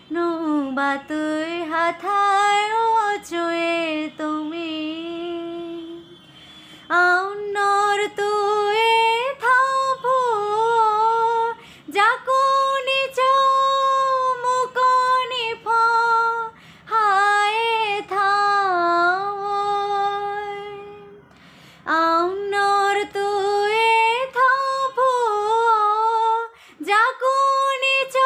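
A young woman singing solo without accompaniment, a slow song in long held notes whose pitch wavers and slides, with short breaks for breath between phrases.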